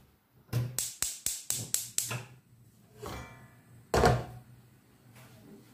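A quick, even run of about seven sharp clicks, about four a second, from a gas hob's electric igniter lighting the burner, then one loud knock about four seconds in as the frying pan is set down on the burner grate.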